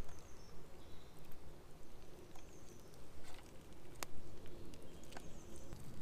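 Handling of a raw salmon fillet and split-wood skewers on a log, with a few sharp clicks, the strongest about four seconds in, over low wind rumble and faint high bird chirps.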